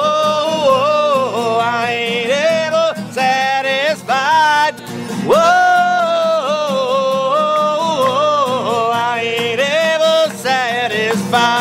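Live country music: strummed guitar under a high, wavering lead melody line.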